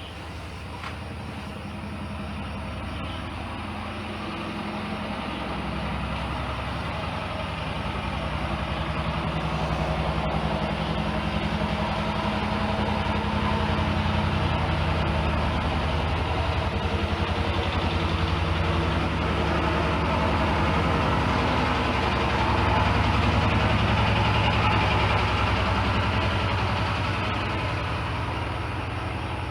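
A steady low engine rumble with a fast, even pulse, slowly swelling over about twenty seconds and easing off near the end.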